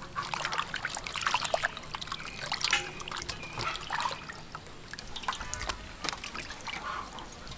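Water splashing and trickling in a metal basin as hands rub and rinse whole squid, with irregular small splashes and drips.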